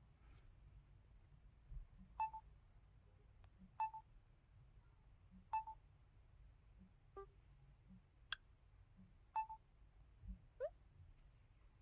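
LG-LB4400 mobile phone touch sounds played one after another: about eight short electronic blips a second or two apart, a mix of knock-like clicks and brief beeps, the last a quick rising bubble-like bloop.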